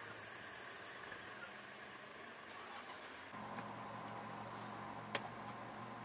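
An engine running steadily with a low hum, growing a little louder about three seconds in, with one sharp click near the end.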